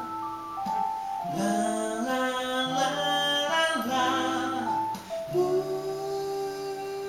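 A singer with guitar accompaniment, sustained notes changing every second or so, then settling on one long held note from about five seconds in.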